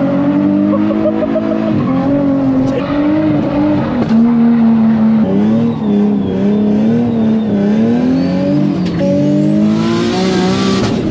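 Nissan 350Z's V6 engine through a loud aftermarket exhaust, heard from inside the cabin, held high in the revs with its pitch rising and dipping, broken by several abrupt cuts. A hiss joins in near the end.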